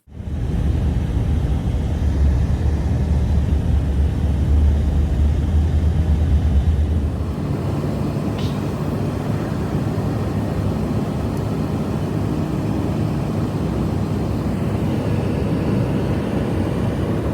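Strong blizzard wind blowing as a loud, deep, steady rumble. It eases a little after about seven seconds.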